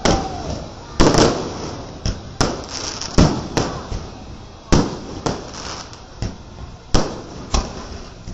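Fireworks display: about a dozen sharp bangs from aerial shells bursting at irregular intervals, each trailing off briefly.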